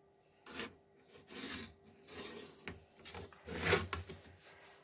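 A steel ruler and hands sliding and scraping across an MDF board as the ruler is repositioned for marking: about five rubbing strokes, the last the loudest.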